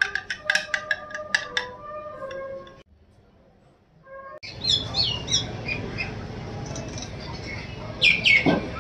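A metal spoon stirring coffee in a glass, clinking against the side in a quick run of ringing clinks. After a short gap, a bird calls over a steady background hum: short downward-sliding notes, then a louder burst of calls near the end.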